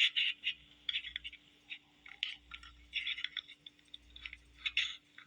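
Irregular scratching, rubbing and clicking played back through a handheld voice recorder's small, tinny speaker, over a faint steady hum. The owner takes it for handling noise from his own fingers feeling for the replay button, not anything paranormal.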